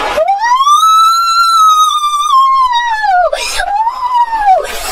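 A comic sound effect laid over the picture: one high, pure sliding tone that rises, holds for about two seconds and falls away, then a shorter second rise and fall. The river background drops out while it plays.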